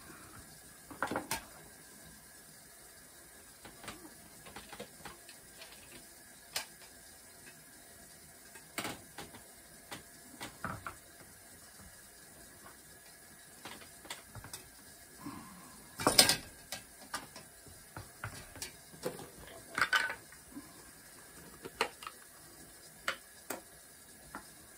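Irregular small clicks, clinks and knocks of objects being handled, scattered through with quiet gaps; the loudest knock comes about sixteen seconds in.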